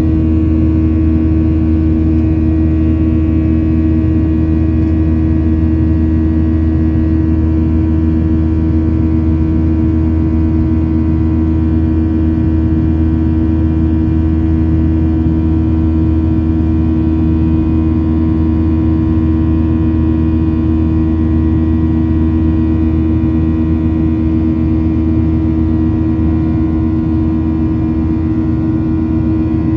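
Boeing 737-900ER's CFM56-7B turbofan engines running steadily during the climb after takeoff, heard from inside the cabin over the wing: a steady drone with several steady tones on top.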